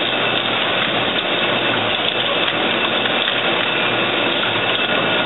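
Automatic hypodermic needle assembly machine running continuously: a steady, dense mechanical running noise with a low hum and faint steady high whines.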